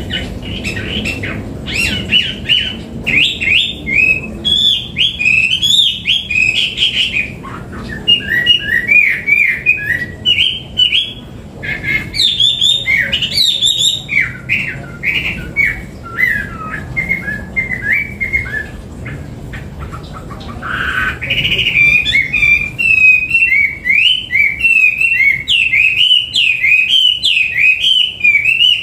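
Hwamei (Chinese hwamei) singing loudly and almost without pause, a rapid run of varied, sliding whistled phrases. There are short breaks about seven and twenty seconds in.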